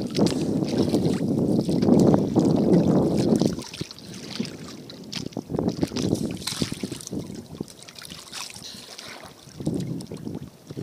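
Water sloshing and splashing around a small wooden outrigger boat. It is loud for the first few seconds, then drops to quieter lapping with scattered light knocks and clicks against the hull.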